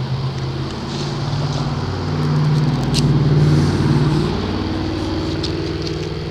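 A motor engine droning, growing louder about halfway through and then easing off as its pitch shifts, with a few faint clicks over it.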